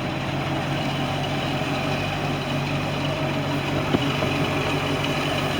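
MerCruiser 5.0 V8 sterndrive engine idling steadily, with a single brief click about four seconds in.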